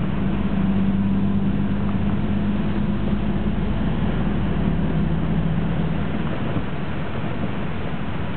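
Autosan Ramzes bus heard from inside while driving: a steady low engine drone under road and tyre noise, its hum dropping slightly in tone after about six seconds.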